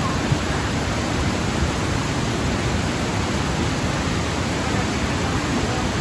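White water rushing steadily over the rock ledges of a wide, stepped waterfall.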